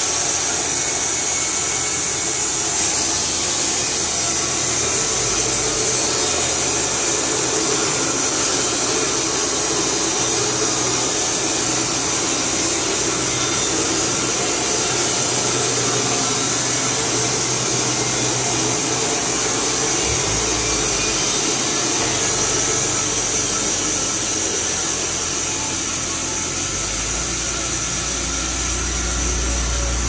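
Carpathian SM 110 manual band sawmill running on its 11 kW electric motor, the band blade cutting steadily through a log with a high hiss. A deeper hum comes in near the end.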